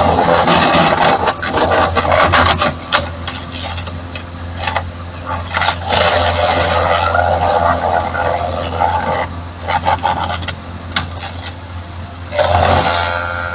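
Belt-driven wood crusher with a large electric motor running with a steady hum while branches and logs are fed in and chipped up, in loud irregular bursts with many sharp cracks and knocks.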